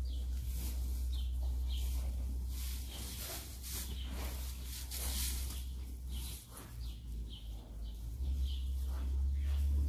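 Small birds chirping over and over above a steady low hum, with rustling in the straw around the middle as the newborn calf shifts its hooves.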